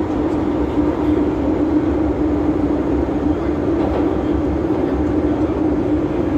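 MTR Tsuen Wan line M-Train running at steady speed, heard from inside the passenger car: a continuous rumble of wheels on rail with a steady drone.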